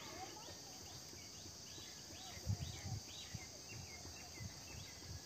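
Outdoor ambience: a bird calling in a quick series of short chirps over a steady insect drone, with a few low knocks about halfway through.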